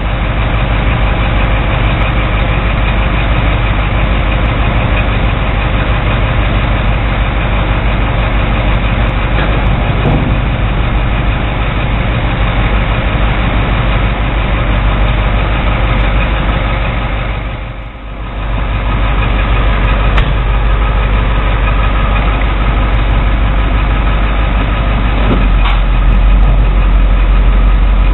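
A Navistar International 4600 truck's 7.3-litre V8 diesel runs steadily and loudly while it drives the hydraulic arms that set down a steel frontload dumpster. The sound dips briefly about two-thirds of the way through.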